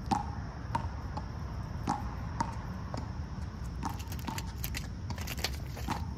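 Squirrel picking through a metal tray of in-shell peanuts: irregular sharp clicks and clinks of shells against the tin, turning into denser, crackly crunching in the second half as it bites into the shells.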